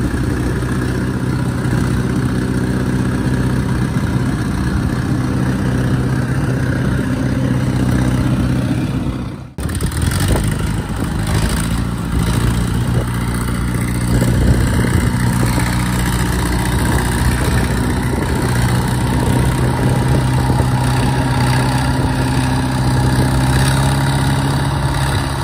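Engine of a tracked rice-hauling cart loaded with paddy sacks, running steadily as it crawls through the mud, with a brief break about ten seconds in. Rain hiss is mixed in.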